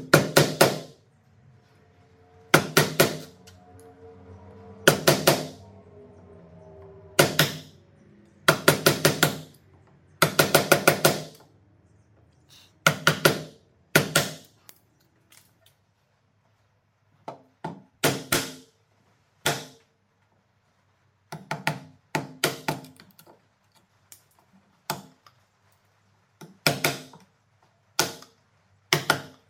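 Bench chisel struck with a mallet to chop out the waste between hand-cut dovetails in hardwood. It comes as short bursts of quick, sharp blows about every two seconds, then lighter, sparser taps in the second half as the waste is cleared.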